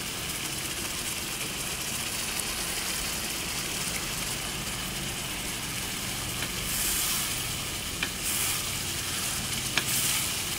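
A paste of blended shallots, garlic and fresh turmeric with dried shrimp sizzling steadily as it fries in hot oil in a wok, stirred with a wooden spatula, with a few light clicks in the second half.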